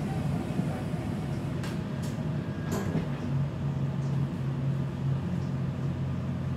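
Breda VLC tram running along the track, heard from inside the car: a steady rumble of wheels on rail with a low motor hum, and a few sharp clicks and rattles about two to three seconds in.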